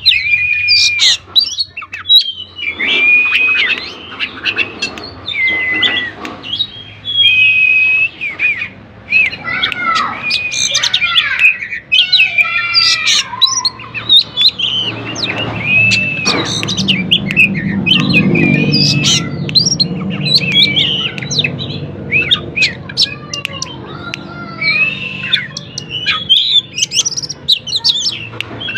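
Oriental magpie-robin singing continuously in full voice, a varied song of clear whistles, rising and falling slurred notes and quick harsher phrases.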